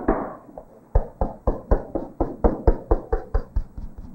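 Chalk rubbed rapidly back and forth on a blackboard to shade in a broad band, about four strokes a second, each tapping and scraping against the board.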